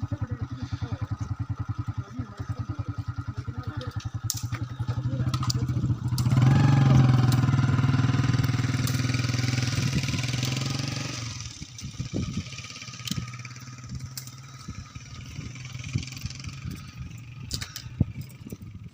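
A small petrol engine idling with an even putter, then revved up and held high for about five seconds from about six seconds in. It drops away suddenly before halfway, leaving scattered clicks and knocks.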